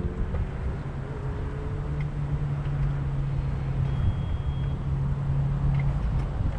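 Road traffic passing on a nearby street, with a steady low engine hum under a rumbling noise.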